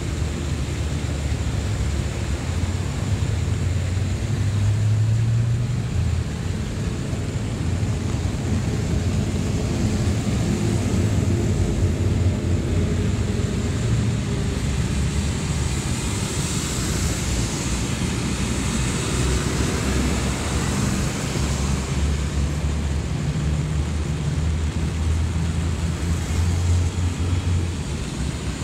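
Steady low rumble of road traffic on a wet road, with a swell of tyre hiss about two-thirds of the way through as a vehicle passes.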